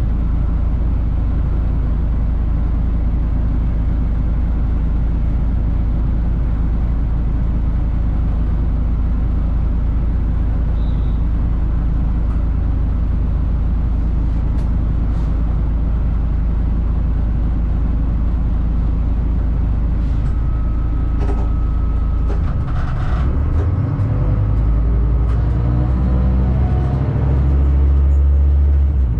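Diesel railcar running along the line, a steady low rumble heard from inside the driver's cab. About three-quarters of the way through the rumble turns rougher and grows louder, with a few clicks and a brief thin whine.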